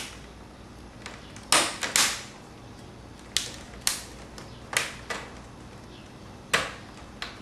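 Plastic screen bezel of an HP Pavilion DV6-7010US laptop being pressed back on by hand, its clips snapping into place in about nine sharp clicks at uneven intervals, some in quick pairs.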